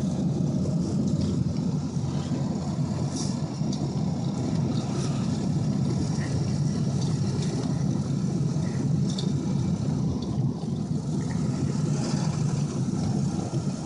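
Steady engine and road rumble inside the cab of a 2002 Ford F-250 pickup driving on snow-covered, rutted roads.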